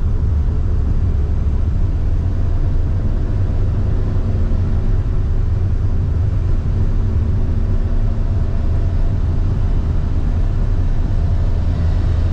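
Mazda Autozam AZ-1's small three-cylinder mid-engine running while the car drives along, heard from inside the cabin together with road and tyre noise: a steady deep rumble with a faint engine hum over it.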